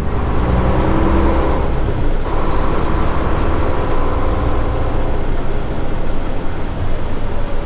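Volvo semi truck's diesel engine running, heard inside the cab as the truck slows into a turn lane. Its note changes about two seconds in, then a faint higher tone slowly falls.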